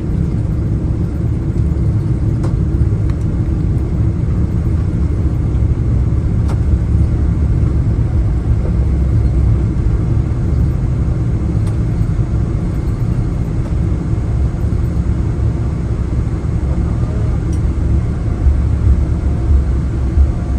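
Boeing 777-300 jet airliner heard from inside the cabin: a loud, steady low rumble of engines and airflow, with a few louder low swells near the end, during the approach and landing.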